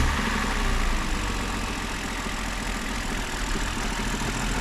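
BMW engine idling just after being started. The mechanics trace its knock to the rear of the engine, near the automatic gearbox's torque converter, and take it for a common, non-critical fault.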